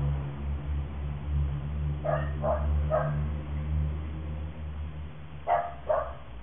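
A dog barking in two short runs: three quick barks, then a pause, then two more. A steady low hum runs underneath and stops near the end.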